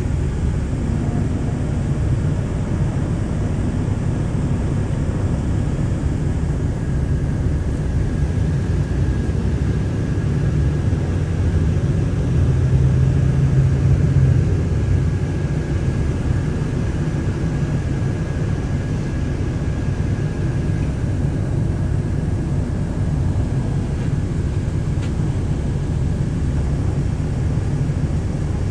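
Steady low rumble of a city bus's engine and road noise heard from inside the cabin while it drives, swelling briefly about halfway through.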